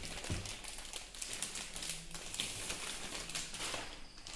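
Rustling, scraping and a run of light clicks from molded pulp cardboard packaging being handled as an AIO liquid cooler's radiator and tubes are lifted out of it.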